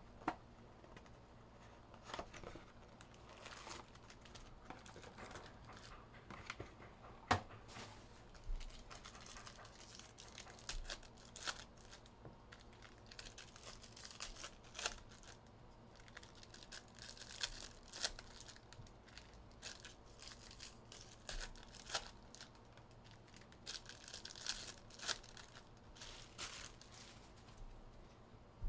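Sealed trading-card packs being torn open by hand: plastic wrappers ripping and crinkling, with scattered light clicks as cards are handled.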